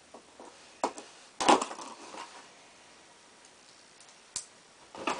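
Skateboard deck packaging being handled and opened: a few sharp knocks and rustles, the loudest about a second and a half in, and a single click near the end.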